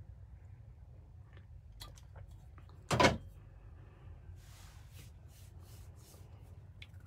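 A black insulated tumbler set down with one loud clunk about three seconds in, over a low steady hum, with a few soft rustles after it.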